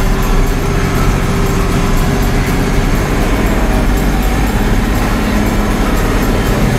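Tractor engine running steadily under load, heard from inside the cab while it pulls a planter, with a constant low hum and cab rattle and no breaks.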